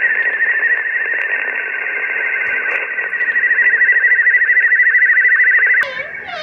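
A non-voice signal coming through the HF ham radio transceiver's speaker: a steady warbling tone with a fast rippling pulse that cuts off abruptly near the end.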